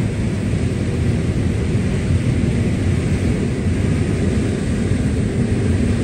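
Combine harvester running steadily while harvesting dry corn, an even low drone of engine and threshing machinery heard from inside the cab.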